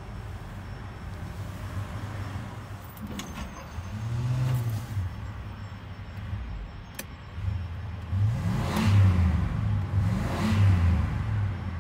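1967 Pontiac Safari's V8 idling, heard from inside the cabin, with a short rev about four seconds in and two more revs near the end, the pitch rising and falling each time.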